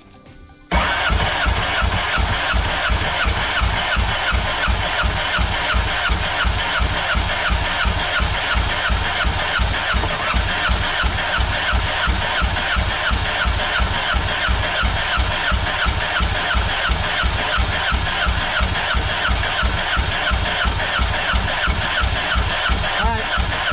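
Starter cranking a Yamaha jet boat's four-cylinder four-stroke engine over with its spark plugs out, in a fast, even chug that starts about a second in and stops just before the end. This is a compression test: with the gauge on the third cylinder, the reading builds to about 185 psi.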